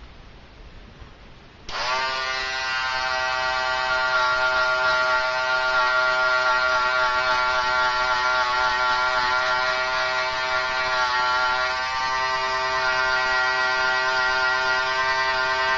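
Electric hair trimmer switched on about two seconds in, then buzzing steadily while cutting lines into a hair design.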